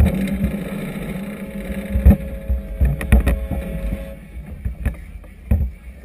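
Wind and choppy harbour water around a moored floating vessel, a steady low rumble broken by irregular low thumps. A steady motor hum runs for the first four seconds and then cuts off.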